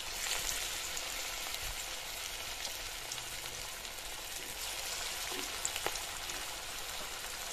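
Drumstick-leaf (moringa) pakora batter deep-frying in hot oil in a kadhai: a steady sizzle that swells briefly just after the start as a fresh handful of batter drops in.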